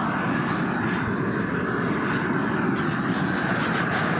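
Roofing torch flame burning steadily, a continuous even rushing noise, as it heats the bitumen cap sheet flashing at the angle change to melt it onto the roof.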